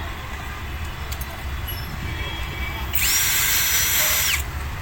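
Hitachi DV13VSS electric drill given a short run: about three seconds in its motor whines up quickly to full speed, runs steadily for about a second and a half, then winds down.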